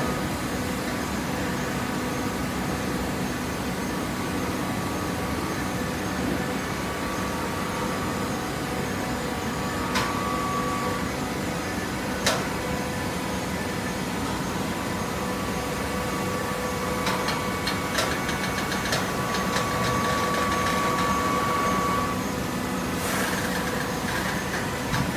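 Hydraulic cardboard baler running: a steady motor and pump hum with a held whine, and a few sharp knocks and rattles now and then.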